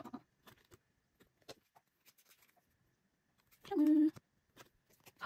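Stiff photocards clicking and sliding against each other as they are flipped through in a hand-held stack. About four seconds in, a brief loud hummed vocal sound, held on one pitch for half a second.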